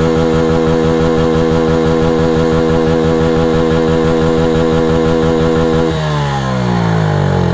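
Dirt bike's single-cylinder engine held at steady high revs in neutral with no load. About six seconds in, the revs fall away.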